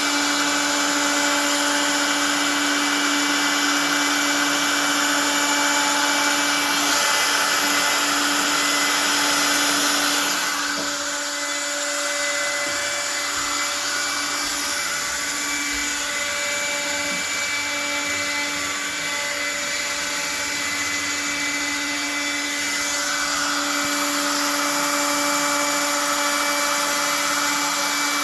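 Hobby CNC router's spindle running with a steady whine while a 2 mm corn-cob end mill cuts numbers out of wood. The cutting noise eases about a third of the way through and grows louder again near the end.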